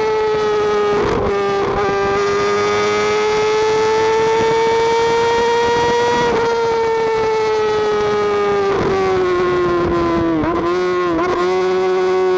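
Sport motorcycle engine held at high revs, a loud, steady high-pitched whine inside a road tunnel. The pitch climbs slowly, then eases off, with two quick dips in revs near the end.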